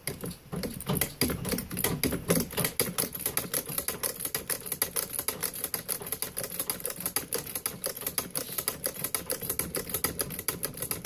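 Singer 29-4 treadle-driven shoe patcher sewing through a leather work boot: the needle and mechanism clatter in a rapid, even run of clicks, uneven for the first couple of seconds and then steady.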